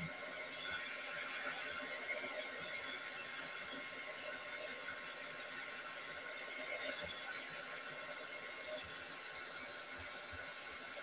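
Craft heat gun blowing steadily, a rush of air with a thin whine on top, drying wet modeling paste on a board.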